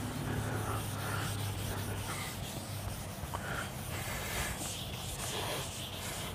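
Whiteboard eraser rubbing across a whiteboard in repeated wiping strokes, clearing off marker writing.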